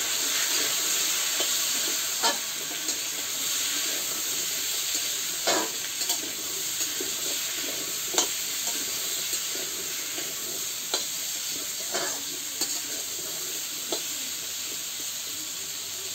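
Potato pieces frying and sizzling in a metal karahi, with a metal spatula clinking and scraping against the pan every second or two as they are stirred.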